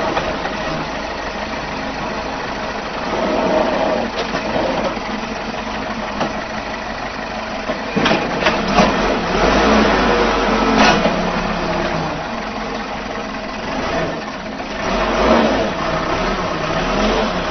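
Excavator engine running and revving up and down, with a few sharp clanks about eight to eleven seconds in.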